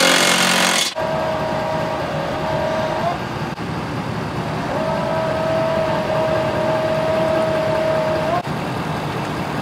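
A cordless impact wrench hammering a bolt on a fifth-wheel hitch for about a second, then a pickup truck's engine running with a steady high tone that sounds twice, about two seconds and then about four, bending upward just before it stops.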